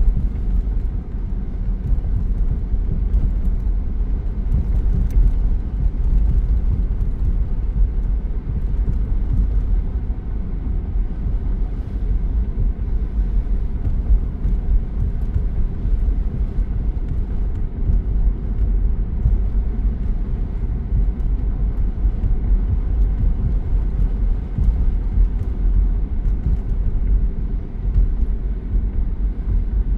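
Car driving, with a steady low rumble of engine and tyres on the road.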